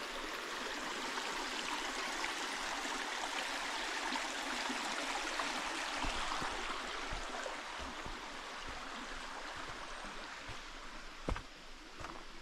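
Creek water running steadily over rocks and through shallow pools, an even rushing and gurgling. From about halfway in, a few soft low thumps sound over it.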